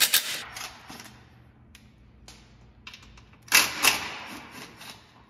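A small lightweight impact gun backs out 10 mm skid-plate bolts in two short runs, one at the very start and one from about three and a half seconds in. Each run is a rattling hammer over a high motor whine. Between the runs come a few light clicks.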